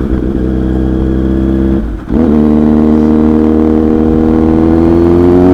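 Superbike engine running under way, with a short break in the sound about two seconds in, after which its pitch rises slowly as it accelerates.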